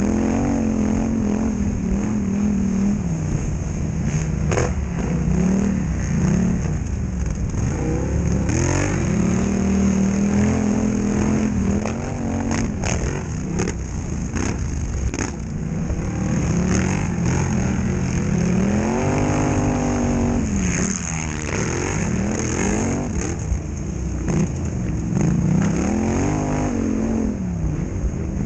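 Polaris Scrambler XP1000 quad's twin-cylinder engine revving up and down again and again under race load, with scattered short knocks.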